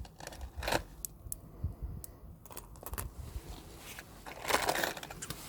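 Small metal jewellery being handled and moved about: a few light clicks and rustling, busier about four and a half seconds in.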